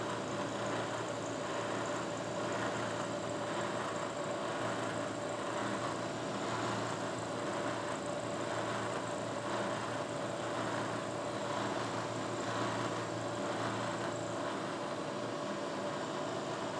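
Bridgeport manual milling machine running a quarter-inch two-flute end mill through a shallow side cut on a metal block, a steady machine hum with cutting noise.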